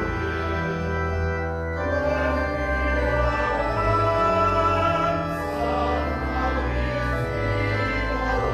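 Church organ playing sustained chords over a moving pedal bass, the chords changing every half second or so, with singing voices faintly along with it.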